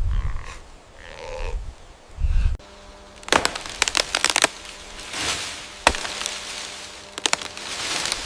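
An elephant's low, heavy grunts for the first two seconds or so, then a quick run of sharp cracks and snaps of wood, with a few single cracks and soft rushing swells after.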